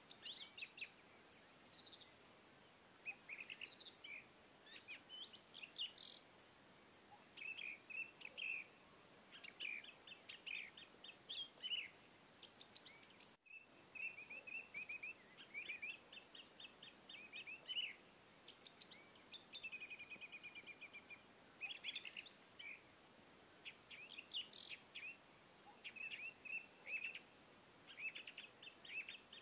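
Quiet birdsong: several birds chirping and giving rapid repeated trills, laid on as a background sound-effect track, with a brief cut about thirteen seconds in.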